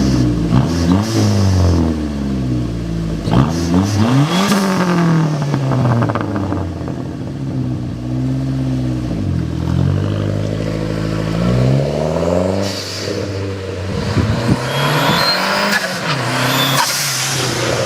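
Dodge SRT-4's 2.4-litre turbocharged four-cylinder engine revving, its pitch rising and falling again and again, with a thin high whistle near the end.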